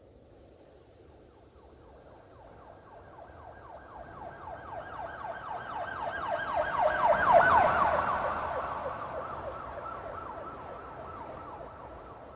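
Police car siren in a fast yelp, several rising sweeps a second, growing louder as it approaches, loudest a little past the middle as it passes, then fading as it moves away.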